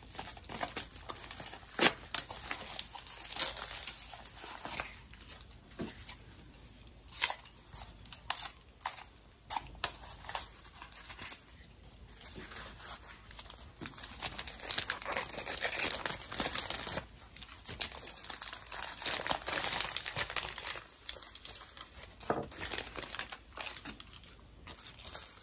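Plastic poly mailer and paper mailer being opened by hand: crinkling, rustling and tearing, with many scattered sharp crackles.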